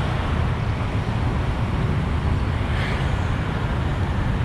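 Steady wind rush on the microphone over the low rumble of a moving motorcycle and road traffic.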